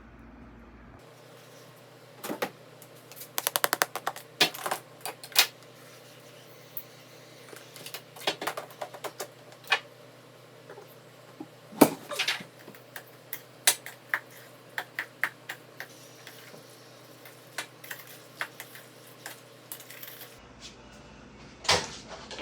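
Irregular clicks and knocks of kitchen work, with a quick run of rapid taps about three to four seconds in and a sharper knock near the middle.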